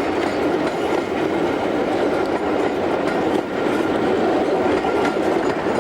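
Diesel-hauled passenger train running past, a steady noise of wheels on rails.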